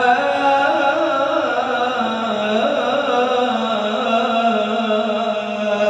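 A male qari's voice in melodic Quran recitation, drawing out one long, wavering, ornamented note on the words 'yaqumul hisab' at the close of the verse.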